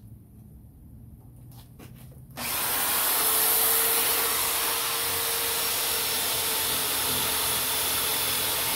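Corded electric drill with a foam polishing pad starting up about two and a half seconds in and running steadily with a constant whine while buffing a plastic motorcycle fuel tank. Before it starts there are only faint handling clicks.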